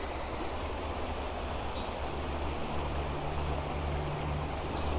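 River water flowing over shallow shoals: a steady rush of running water.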